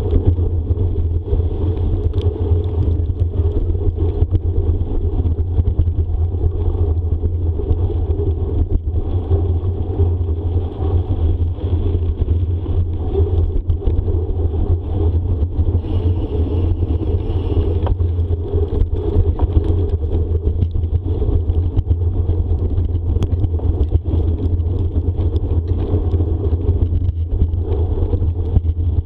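Wind buffeting the microphone over the rumble of a bicycle's tyres rolling fast along a trail, with occasional light clatter from the bike.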